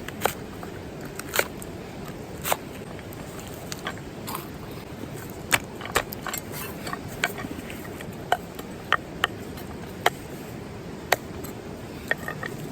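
Wood campfire crackling, with irregular sharp pops about once a second over a steady low rushing background.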